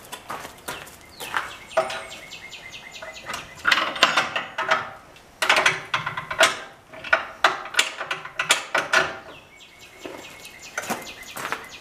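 Metal clanks and knocks of hitch-carrier parts being handled and fitted under a motorcycle, with two runs of rapid, even ticking, the first about a second in and the second near the end.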